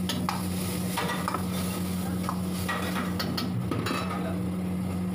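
Metal spatula stirring and scraping in a carbon-steel wok as a masala gravy sizzles, with a dozen or so irregular clicks and scrapes. A steady low hum runs underneath.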